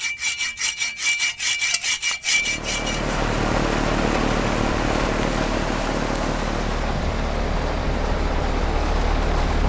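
Hand-held hacksaw blade cutting through a steel motor mounting bolt in quick strokes, about four a second, with a metallic ringing tone. After about two seconds it gives way to the steady whoosh and low hum of the outdoor air conditioner condenser running.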